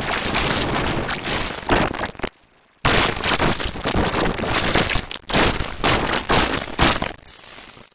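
Harsh, heavily distorted crackling noise: a cereal commercial's soundtrack mangled by audio effects. It cuts out briefly about two and a half seconds in, comes back as loud as before, and dies down near the end.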